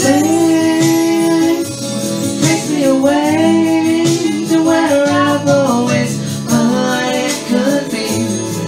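A voice singing long held notes that slide between pitches, over instrumental backing.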